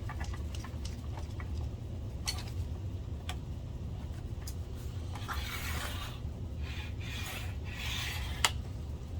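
Small clicks and taps of screws, tools and metal projector parts being handled, with two short rubbing or rasping sounds in the second half and a sharper click near the end, over a steady low hum.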